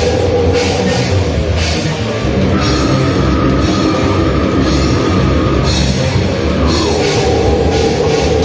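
Live grindcore band playing loud, heavily distorted guitars and bass over fast drums with crashing cymbals. A held guitar note jumps higher about two and a half seconds in and drops back near the end.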